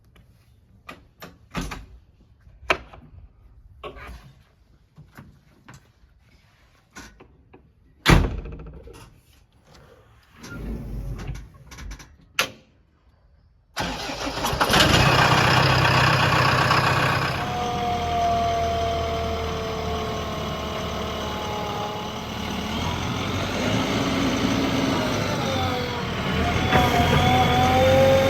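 Scattered clicks and knocks for about the first half, then the diesel engine of heavy earth-moving machinery cuts in suddenly and runs loudly, with a whine that rises and falls in pitch through the rest.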